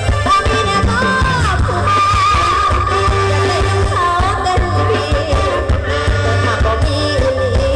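Loud live band music from an Isan mor lam stage troupe played through a PA system: a woman sings over drums, keyboard and electric guitar, with a heavy pulsing bass.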